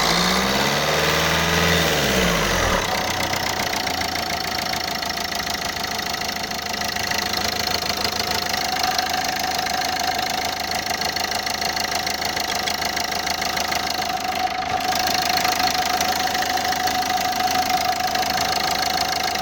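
Renault Scenic II engine running with a knock that the owner cannot place and wonders whether it is a leaking fuel injector. Its speed rises and falls once over the first few seconds, then it settles to a steady idle.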